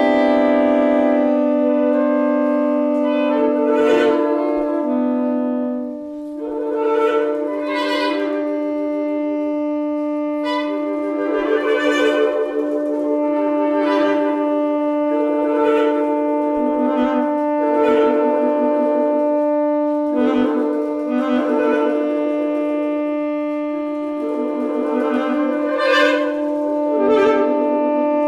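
Saxophone sextet playing: long held notes under short accented chords that come every second or two.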